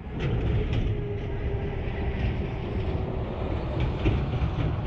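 A small boat's motor running steadily under way, a constant hum over a heavy low rumble of wind and water noise on the microphone.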